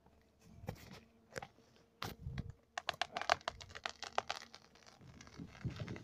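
Hinge wood of a felled tree cracking and splintering as the tree starts to tip over its felling wedge: a few sharp cracks, then about two seconds of dense crackling.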